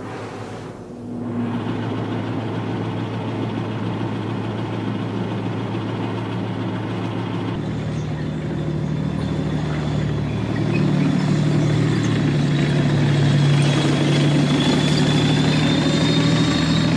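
Engines of tracked armoured vehicles running with a steady low drone. A little under halfway through it changes abruptly to a deeper, louder engine with a thin high whine that climbs slowly in pitch.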